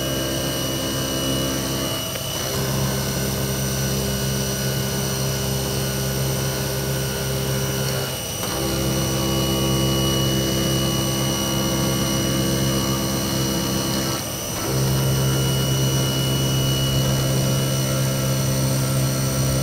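A 2003 Haas TM-1 CNC mill running its spindle while the cutter chamfers the edges of an aluminium cube. It makes a steady hum with several held tones, which drops off briefly three times, roughly every six seconds, and then picks up again.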